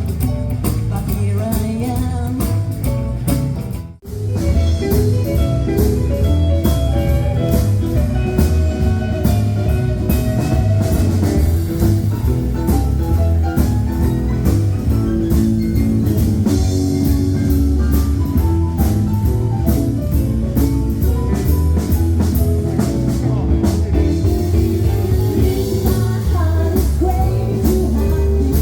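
A band playing bluesy music with electric guitar, bass, drums and singing; the sound dips out for a moment about four seconds in.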